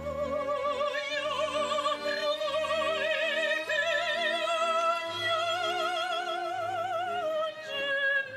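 Female opera singer holding one long note with wide vibrato, its pitch edging slowly upward, then stepping down to a lower note near the end, with a string orchestra accompanying.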